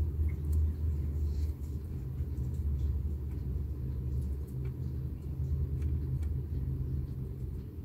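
A steady low rumbling hum in the background, with a few faint light ticks from a knife peeling the skin off a steamed beetroot.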